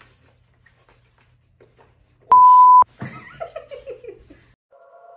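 A loud, steady beep tone lasting about half a second, about two seconds in, the kind of bleep edited into a video. A woman laughs right after it, and music starts near the end.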